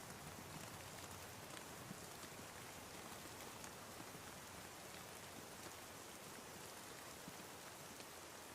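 Steady, soft rainfall, a continuous hiss dotted with faint drop ticks.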